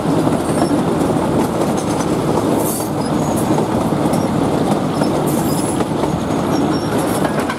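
Narrow-gauge passenger train running along a long curve, heard from a carriage window: a steady rumble and clatter of wheels on the rails, with some wheel squeal.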